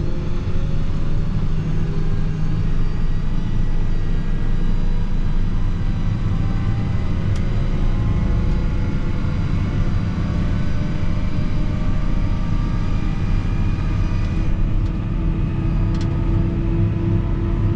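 Fendt 716 Vario tractor's six-cylinder diesel engine running steadily under load while pulling a slurry tanker, with a deep rumble and tones that drift slowly up and down.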